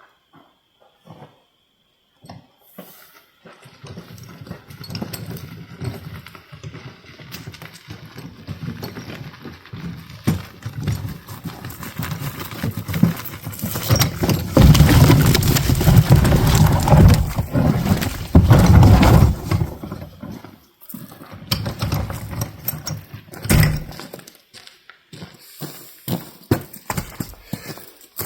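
Footsteps and a loaded wheelbarrow of firewood rolling and rattling over rough ground. The sound starts a few seconds in, is loudest in the middle, and has a sharp knock near the end.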